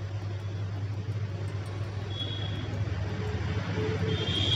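Hot air rework station blowing onto an eMMC chip's reballing stencil, a steady hum and rush of air, as the solder paste is reflowed into balls. The sound grows slightly louder toward the end.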